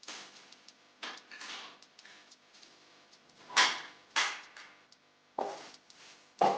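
A series of short knocks and scrapes from wood being handled, about seven in all, each sharp at the start and fading quickly; the loudest are a little past the middle and at the very end.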